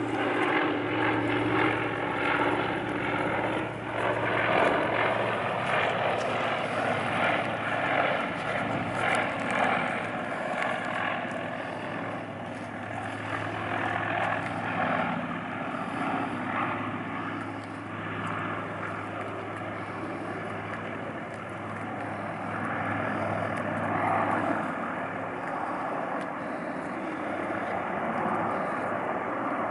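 Propeller engines of a Canadair amphibious water-bomber running steadily as it flies over and comes in low over the water to scoop a load.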